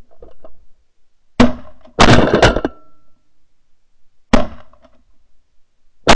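A volley of shotgun blasts from two hunters firing at geese. The first shot comes about a second and a half in, then two quick shots close together, another about four seconds in, and more right at the end.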